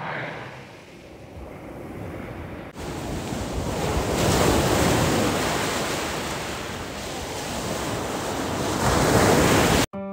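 Baltic Sea surf breaking and washing up a sandy beach at the waterline. It grows louder from about three seconds in and stops suddenly near the end.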